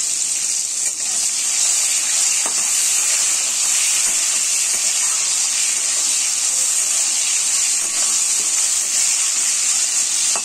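Chopped tomato sizzling in hot oil with whole spices in a metal kadai: a steady, even frying hiss.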